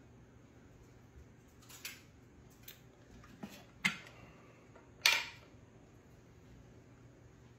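Kitchen utensils being handled: a few separate clinks and knocks of a metal mixer whisk and a glass bowl, the loudest about five seconds in, over a faint steady hum.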